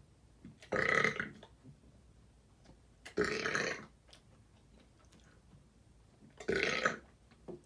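A man belching three times, each burp lasting about half a second, with two to three seconds between them.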